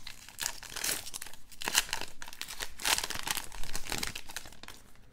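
A 2019 Topps Allen & Ginter baseball card pack wrapper crinkling and tearing as it is ripped open by hand, in a run of irregular crackles that thins out near the end.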